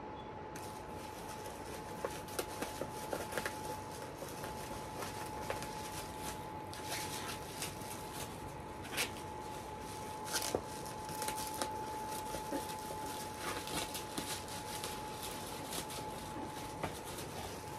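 Bubble-wrap packaging being handled and pulled open: rustling plastic with many scattered sharp crinkles and crackles, over a faint steady tone.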